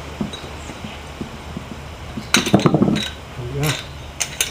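Metal tools clinking and scraping against an automotive AC compressor's clutch parts while a part is pried off. A quick cluster of sharp clinks comes about halfway through, and a few more near the end.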